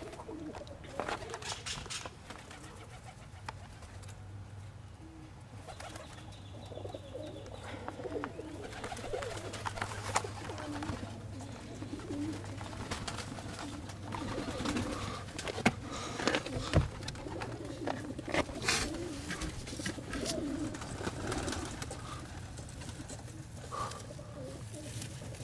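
Domestic pigeons cooing, with a run of low, wavering coos through the middle of the stretch. A few sharp knocks and clicks are also heard.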